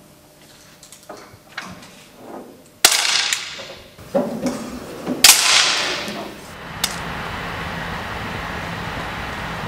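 10 m air pistol (4.5 mm) shots on an indoor range: two sharp cracks about two and a half seconds apart, each with a short echo, among smaller knocks. A steady hiss takes over from about seven seconds in.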